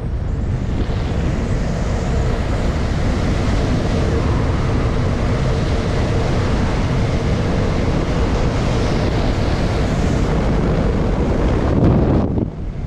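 Loud, steady rush of wind buffeting the microphone, with a faint steady hum underneath; it drops away suddenly near the end.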